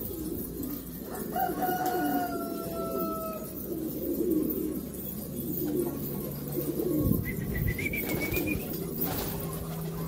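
A flock of domestic pigeons cooing continuously, overlapping low warbling calls. A few thin whistle-like tones sound over it early on and again about seven seconds in.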